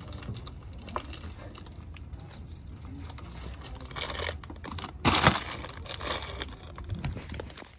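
Plastic snack packaging crinkling and rustling as an armful of items is handled, in scattered bursts; the loudest rustle comes about five seconds in.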